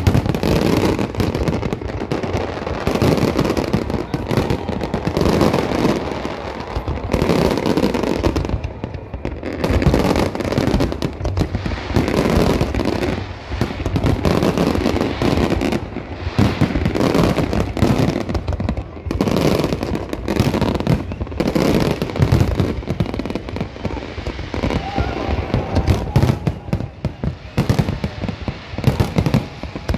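Aerial fireworks display going off in a continuous barrage: many shell bursts in quick succession with no break.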